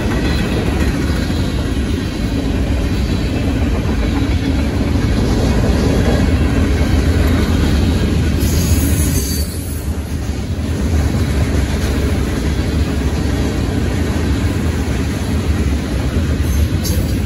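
Freight cars of a manifest freight train rolling past close by: a steady, loud rumble and clatter of steel wheels on the rails.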